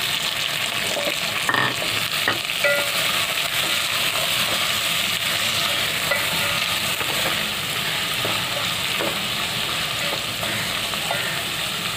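Sliced onions sizzling in hot oil and ghee, freshly added and frying on a low flame, with a steady hiss. A wooden spatula stirs them, giving a few light knocks and scrapes against the metal pot.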